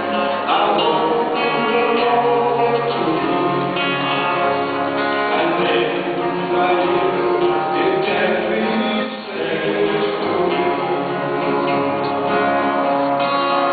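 Two men singing a Christian song as a duet, accompanied by a lead guitar.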